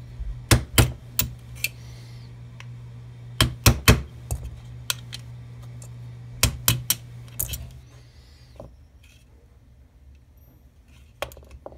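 Sharp metallic taps in short runs of three or four: a small hammer tapping a pin punch to drive the pins out of a Glock pistol frame during disassembly.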